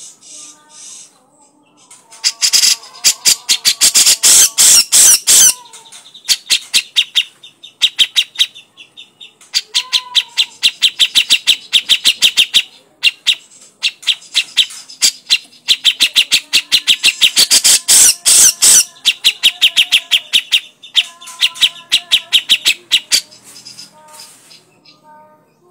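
Grey-cheeked bulbul (cucak jenggot) giving its harsh, rapid rattling chatter, in several loud bursts of a few seconds each with short pauses between.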